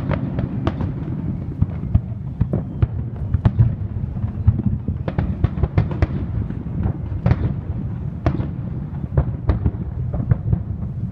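Aerial fireworks bursting in a rapid barrage: an irregular string of sharp bangs, about two a second, over a continuous low rumble of overlapping bursts and their echoes.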